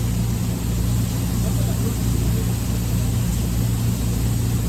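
Steady low mechanical hum of running machinery, an even drone that does not change.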